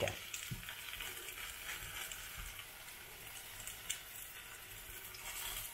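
Hot oil sizzling steadily under grated-potato pancakes (Reibekuchen) frying in a pan, with a brief click of the spoon in the pan about four seconds in.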